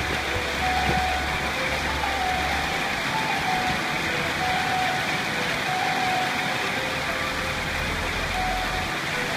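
Heavy rain falling steadily, a loud even hiss, with a low rumble of wind buffeting the microphone for the first few seconds and again near the end.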